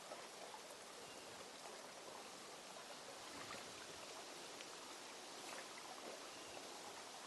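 Rain during a thunderstorm: a faint, steady hiss with scattered light ticks of drops.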